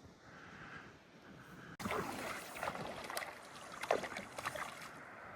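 Water splashing that starts suddenly about two seconds in, then goes on as irregular splashes.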